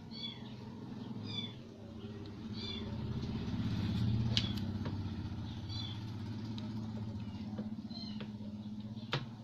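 A low engine-like rumble swells and eases off about four seconds in, over short high chirping animal calls that repeat roughly once a second. Two sharp clicks sound, one near the rumble's peak and one near the end.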